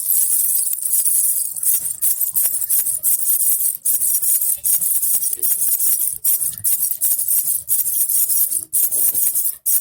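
A baby rattle with small jingle bells (a jhunjhuna) being shaken continuously, a dense high jingling that breaks off briefly a few times.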